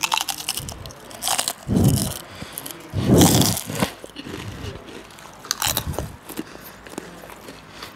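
Crispy snack chips bitten and chewed right next to a clip-on microphone: a series of crackling crunches, the loudest about three seconds in, with a few quieter ones later.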